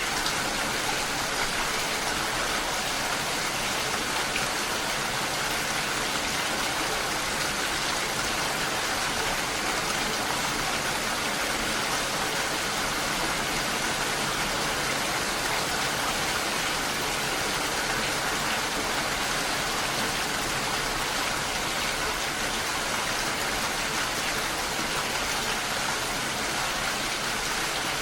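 Steady rain falling on a lake, an even unbroken hiss.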